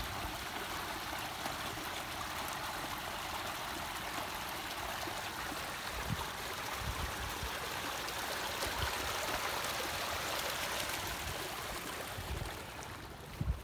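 Muddy water rushing steadily out of an unclogged culvert into a ditch, the steady rush of a cleared drain flowing freely; it fades near the end.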